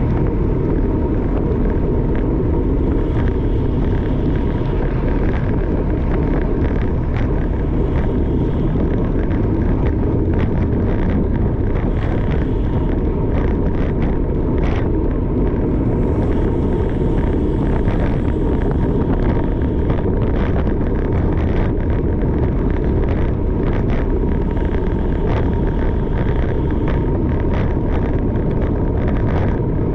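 Steady wind rush over the microphone and road noise from a camera riding along in a bicycle race, a constant low rumble with scattered light clicks.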